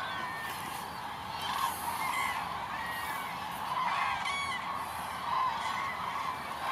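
Large flock of common cranes calling: many trumpeting calls overlap into a steady chorus, with nearer single calls standing out above it every second or so.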